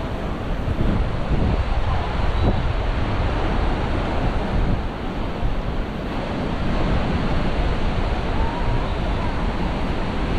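Ocean surf washing steadily onto the beach, with wind buffeting the microphone in low rumbling gusts.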